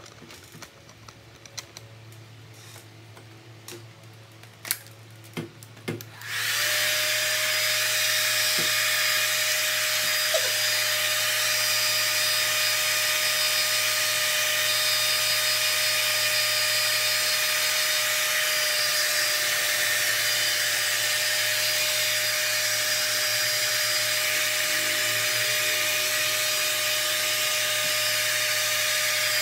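A few faint knocks, then a handheld hair dryer is switched on about six seconds in. It runs steadily: a hiss of blown air with a constant whine.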